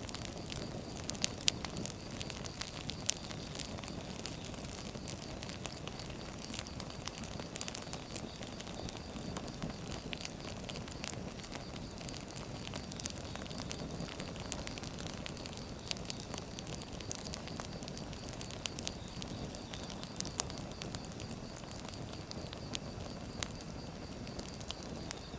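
Firewood burning, crackling and popping with many irregular sharp snaps over a steady low rumble of the flames.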